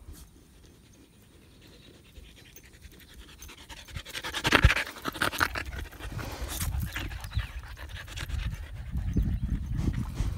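Siberian husky panting rapidly close by, loudest about four to five seconds in, with low rumbling from the phone being handled against fur.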